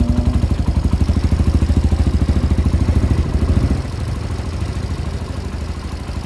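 Kawasaki Barako II motorcycle's single-cylinder four-stroke engine idling with an even, rapid pulse just after starting on one kick. It gets noticeably quieter a little before four seconds in.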